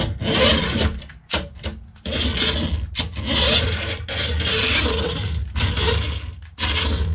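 Small electric drive motor and plastic gearbox of a cheap 27 MHz toy RC Hummer H2 whirring with a rasping buzz in repeated bursts, cutting in and out about six times as the throttle is pressed and released. It is running on fresh batteries.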